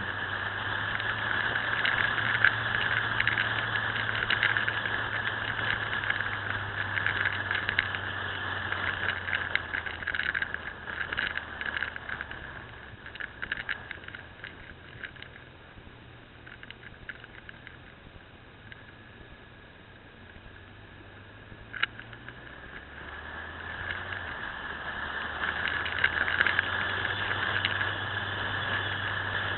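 Motorcycle ride heard from the rider's position: a steady engine hum under wind and rattle noise on the camera microphone. It grows quieter for a while about halfway through, with a single sharp click later on, then rises again near the end.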